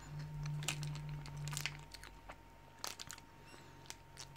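Someone biting and chewing a KitKat cookie wafer bar: a few faint, sharp crunches of the chocolate-coated wafer, over a low steady hum that fades about two seconds in.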